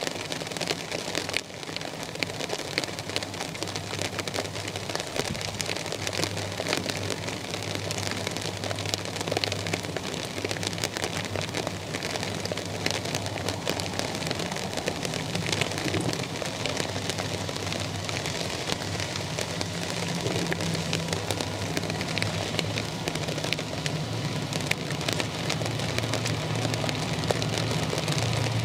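Steady rain pattering, with many sharp drop hits, over a low steady engine hum that grows a little louder near the end.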